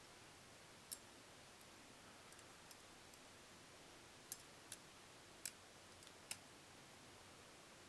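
Short, sharp clicks of a stainless-steel balisong trainer being handled, its parts tapping together. There is one click about a second in and a cluster of four a little past the middle, over near-silent room tone.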